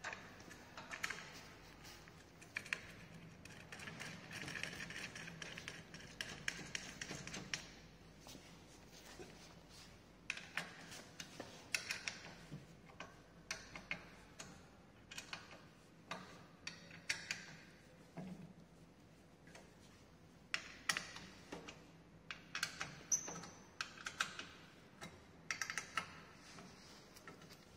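Bolts being turned and tightened at an exercise bike's floor stabilizer: a run of irregular small clicks and taps, busier from about four to seven seconds in.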